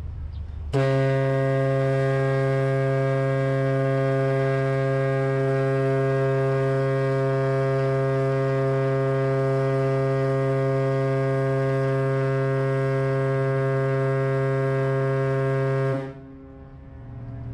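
A ship's horn sounding one long, steady, low blast, starting suddenly about a second in and holding for some fifteen seconds before it stops near the end.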